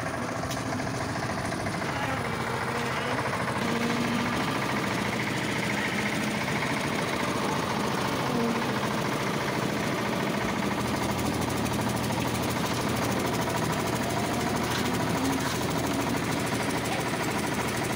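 Engine-driven concrete mixer running steadily, a dense, even mechanical clatter.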